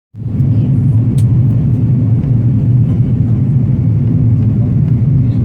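Airliner cabin noise on approach to landing: a steady low rumble of the engines and rushing air, heard from inside the cabin.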